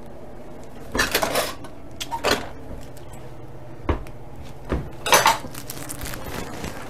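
Metal kitchen utensils and dishes clattering and knocking as a spoon is picked out from among them: about five separate rattles, spaced a second or so apart.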